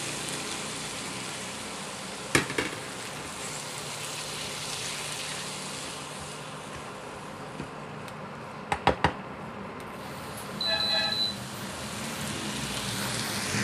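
Diced mixed vegetables sizzling in a nonstick frying pan as they are stirred with a spatula. There is a sharp knock a couple of seconds in and a quick cluster of clicks past the middle. A short electronic beep comes near the end.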